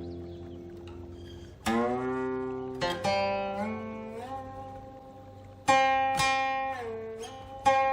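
Guqin played solo: plucked notes that ring and slowly fade, with the left hand sliding the pitch up and down on the sounding string between plucks. An earlier note dies away first, and new plucks come about two seconds in, around three seconds, twice near six seconds and again near the end.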